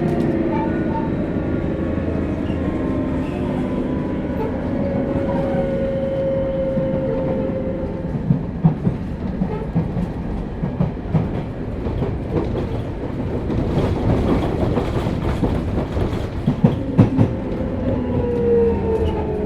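Interior running sound of a Sotetsu New 7000 series motor car with Hitachi GTO-VVVF traction control. The inverter and traction motor whine is heard as gently falling tones at the start and again near the end, with rail-joint clickety-clack in the middle. This car's motors are known for an unusual, abnormal motor sound.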